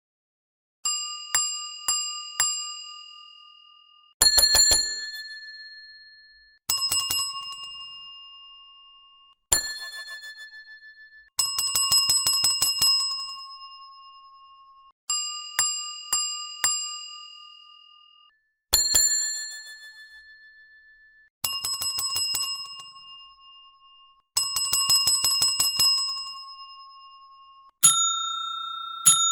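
Hotel reception service bell being struck over and over: single dings, quick runs of three or four, and rapid flurries of many hits, each ringing out with a bright metallic tone that fades over a second or two. The ring comes at a few different pitches from one set of strikes to the next.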